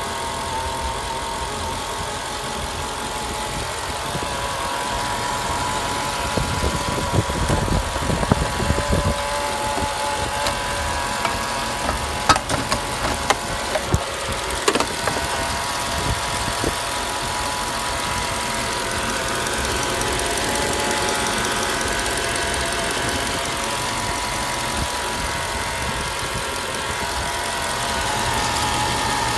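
Mercedes-Benz E55 AMG 5.4-litre V8 running steadily, likely at idle, with a constant whine over the engine note, which the owner suspects may come from the harmonic balancer. A few thumps and sharp clicks come midway.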